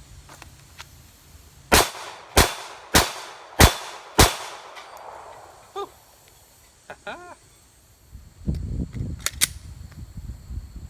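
Five quick pistol shots from a Glock 23 firing 9mm through a .40-to-9mm conversion barrel, about half a second apart, each ringing out briefly. They are the last rounds in the magazine, and a few fainter knocks and clicks follow.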